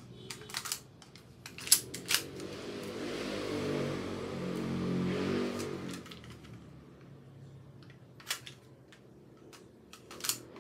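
Airsoft M1911 compact replica pistol being reloaded, the magazine handled and seated: about four sharp clicks in the first two seconds, the loudest near two seconds in, and two more near the end. A low background hum swells and fades in the middle.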